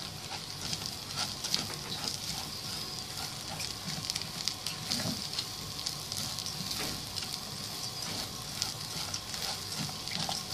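Uncooked rice sizzling as it toasts in oil and butter in a pan, a steady sizzle with fine crackles throughout. A silicone spatula stirs through the grains so each one is coated in the fat and spices before any liquid goes in.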